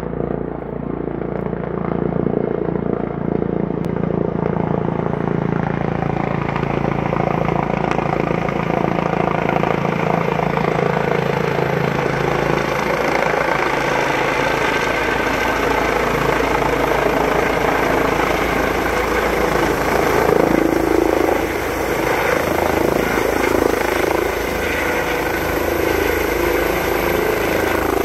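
Eurocopter EC135 twin-turbine rescue helicopter flying low and hovering close, its rotor and engine noise loud and steady after building over the first couple of seconds.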